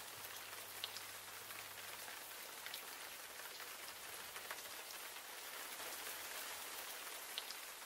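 Steady, faint rain: an even hiss with the odd faint drop tick.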